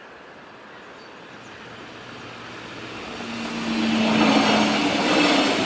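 Diesel regional multiple-unit train passing over the level crossing. The hum of its engines and the rush of its wheels on the rails swell from about two seconds in and peak around four seconds in.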